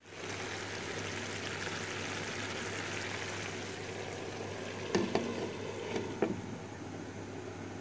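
Shredded cabbage, carrot and onion sizzling steadily in a frying pan under a glass lid as they begin to stew. A few short knocks of the lid against the pan come about five and six seconds in.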